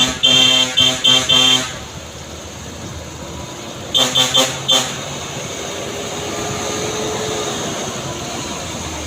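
A vehicle horn sounded in quick, stuttering short blasts, stopping about a second and a half in and coming back briefly around four seconds in. Between and after the blasts, steady vehicle and road noise.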